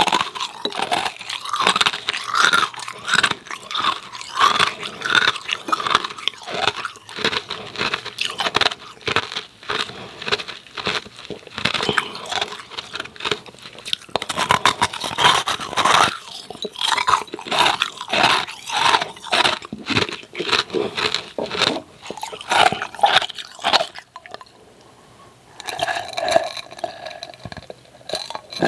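Hard, frost-coated ice cubes crunched and chewed close to the microphone, a fast run of sharp crunches. Near the end the crunching stops briefly and a short pitched sound is heard before the chewing resumes.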